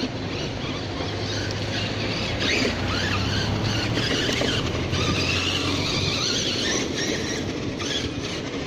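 Redcat Terremoto V2 RC monster truck running on its Turnigy XK-4074 2000KV brushless motor at low speed, the motor's high whine rising and falling in pitch with the throttle as the truck crawls along and over a concrete kerb.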